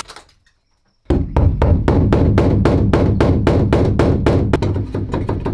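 Hammer driving a chisel against a steel van support beam to break it free after its spot welds have been drilled out: rapid, evenly spaced metal strikes, about five a second, starting about a second in.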